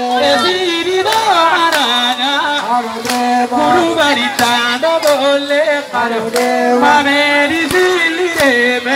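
A man singing a chant-like song into a microphone, amplified through a loudspeaker, in long held notes that slide up and down, with sharp hits now and then.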